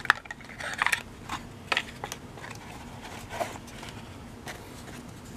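A fishing lure handled into its cardboard box and small cardboard lure boxes set down and slid on a wooden workbench: a run of light clicks, taps and scrapes over the first three and a half seconds, then one last faint tap.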